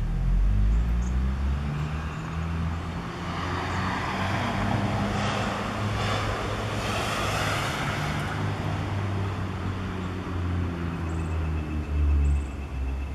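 Passing road traffic: a low engine rumble throughout, with road noise swelling to a peak about halfway through and then fading.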